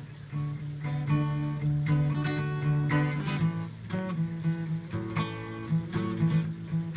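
Acoustic guitar strummed in an instrumental passage, chords ringing on with a steady rhythm of strokes.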